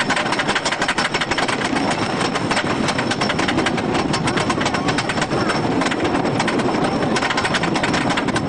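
Wooden roller coaster train clattering along its track, a steady dense rattle of clicks.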